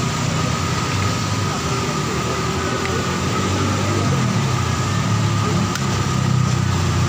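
Steady engine-like hum with a constant high whine running through it, with voices in the background.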